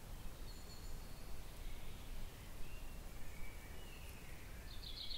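Woodland ambience: faint, scattered bird calls over a steady low rumble, with a louder rapid bird trill starting near the end.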